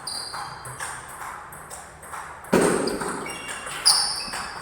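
Table tennis ball in play: a run of sharp clicks as the ball strikes rackets and bounces on the table, several with a short high ping. The loudest hit comes about halfway through, with another sharp one near the end.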